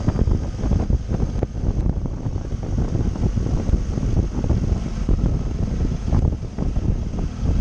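Loud, uneven wind buffeting on the microphone of a moving motorcycle, with road and engine noise underneath.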